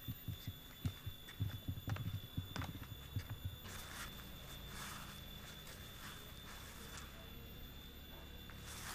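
Footsteps and handling noise from someone walking with a handheld gimbal camera. First comes a quick irregular run of dull low thumps, as on wooden steps, then softer swishing steps through grass, about one or two a second.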